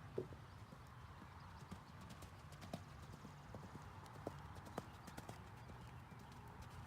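A horse's hooves clopping on hard ground: a string of irregular single knocks, roughly one every half second to second, the first just after the start the loudest.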